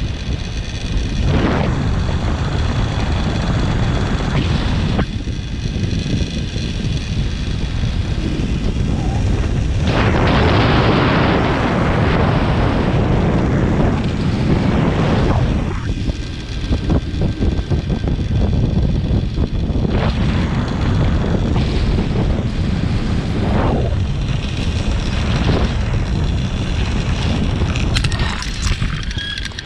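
Heavy wind buffeting an action-camera microphone during a fast zipline descent, with the trolley's pulleys running along the steel cable as a steady high whine above the rumble. A few knocks near the end as the trolley slows at the landing.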